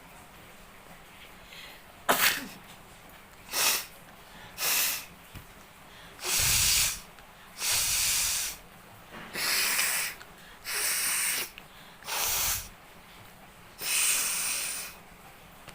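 A person sneezing and forcefully blowing air out through the nose in a series of about nine bursts. A sharp one comes about two seconds in, then two short ones, then six longer blasts of roughly a second each with brief gaps between them.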